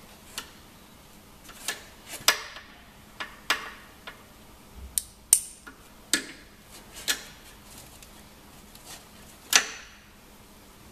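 Irregular sharp clicks and light metallic knocks, about a dozen of them, as hands fasten a boot hoist's strap and clip onto the metal frame of a folded powerchair.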